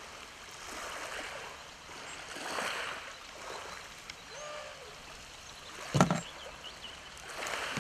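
Sea washing on a shingle beach, an even rushing noise that swells and ebbs every second or two, with one short thump about six seconds in.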